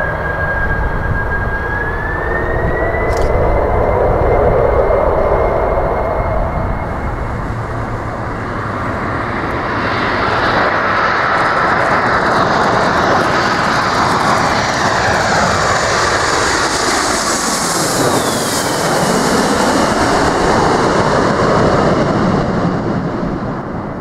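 Boeing 747-400's four GE CF6-80C2 turbofans spooling up on the runway, their fan whine stepping up in pitch about two seconds in. Then a Boeing 767-300ER with Rolls-Royce RB211-524H engines on approach passing close by, loud jet rumble with whines that fall in pitch as it goes past.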